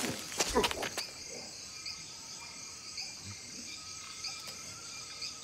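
Night-time cricket and insect chorus: a steady high hum with regular chirps a little under a second apart. In the first second, a few sharp scuffs and a low thump break over it.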